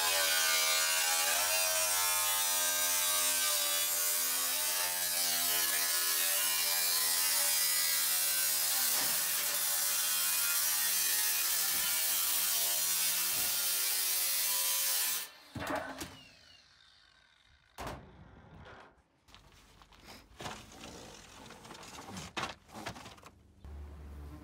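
Power saw cutting through the sheet-steel roof of a GMC Savana van to open the hole for a roof vent fan, its motor whine wavering in pitch over a hiss of cutting noise. It stops about two-thirds of the way through, followed by scattered knocks and clicks.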